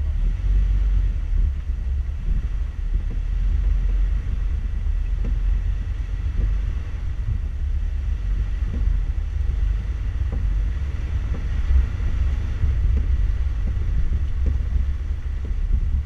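Four-wheel-drive vehicle crawling over a rocky wash: a steady low rumble of the drivetrain and tyres, broken by irregular knocks and jolts as the wheels go over rocks, with wind buffeting the microphone.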